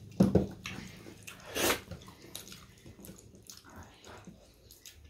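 Wet squelching of bare fingers mashing dhindo into curry gravy on steel plates, mixed with close-up chewing and mouth sounds. There is one louder wet sound about a second and a half in.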